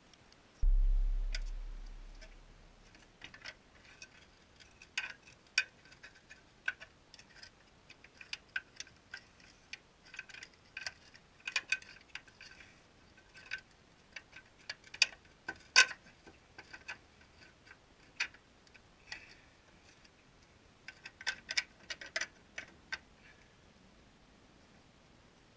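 A deep thump just under a second in, then light, irregular metallic clicks and taps from an aftermarket tubular steel upper control arm and its hardware being fitted into the front suspension mounts of a Jeep Grand Cherokee WK.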